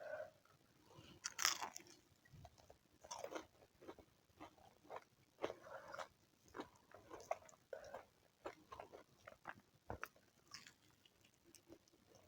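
A person chewing and biting food close to the microphone: irregular soft clicks and crunches, the loudest a little over a second in.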